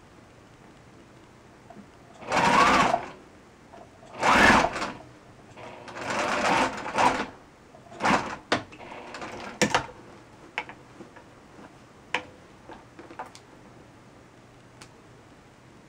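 Domestic electric sewing machine stitching a seam in three short runs of about a second each, a couple of seconds apart, then a few shorter stutters. A handful of light clicks follow as the stitching stops.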